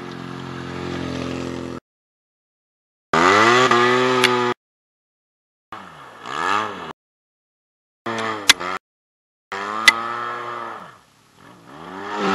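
Arctic Cat Wildcat Trail side-by-side engine running in several short cut-together bursts, steady at first, then rising and falling in pitch as it drives past. Each burst is broken off by sudden silence. Two sharp clicks come partway through.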